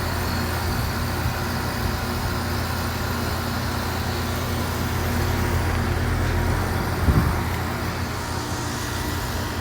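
Several Goodman central air conditioner condensing units running: a steady low hum from the scroll compressors under the even rush of the condenser fans.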